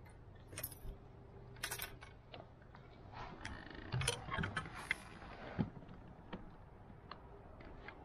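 Scattered metallic clinks, knocks and a short jangling rattle of gear in a canoe, loudest in a cluster about four to six seconds in. Under them, a low steady hum fades out around three seconds in.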